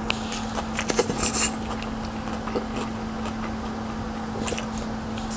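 Close-miked slurping of stir-fried noodles, loudest about a second in, followed by quieter wet chewing clicks.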